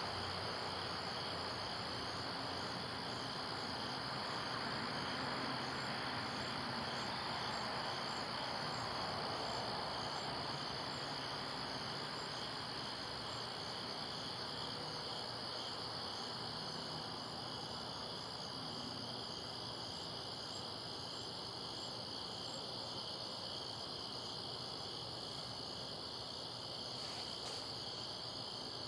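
Steady chorus of crickets, a continuous high trilling that holds level throughout, over a soft even wash of background noise.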